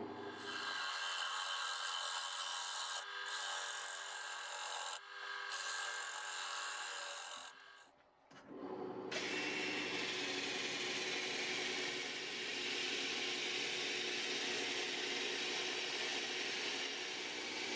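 Power sanding: a drill-driven sanding disc rubbing against a poplar bowl spinning on a wood lathe, a steady hissing rasp over the machines' running. It breaks off briefly about eight seconds in, then carries on.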